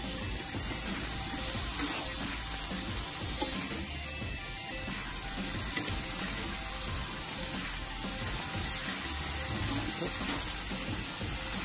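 Marinated pork sizzling on the hot grates of a gas grill over open flame, a steady hiss.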